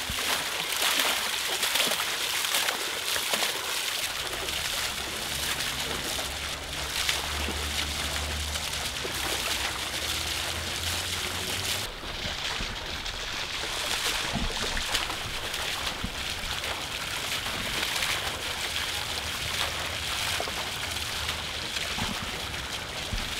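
Garden fountain running: a steady splashing hiss of water falling into its basin, with a low hum underneath for part of it from about four seconds in.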